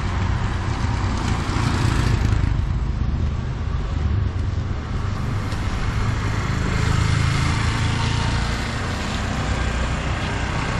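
Street traffic on a wet town road: auto-rickshaws and other vehicles running and passing, with a steady low rumble and tyre hiss.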